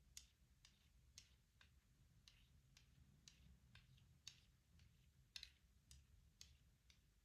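Faint, sharp taps and clicks on a wooden shut-the-box game set, about sixteen of them at an uneven, unhurried pace, a few standing out louder than the rest.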